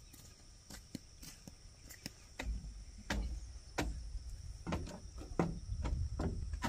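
Irregular light knocks and clicks, a few with a dull low thump, over a faint steady high-pitched drone.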